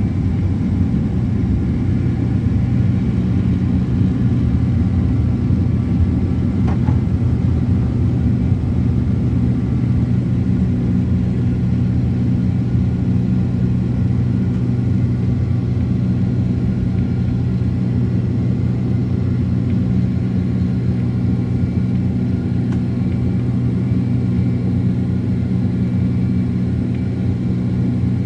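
Cabin noise of a Boeing 767-400ER with its engines running: a loud, steady rumble with a few steady low hums, and one faint click about seven seconds in.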